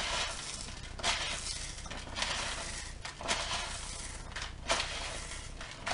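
Chicken pieces pressed and tossed by hand in dry crumb coating in a plastic tub: several crunchy rustles at irregular intervals, with the crumbs crackling against the tub.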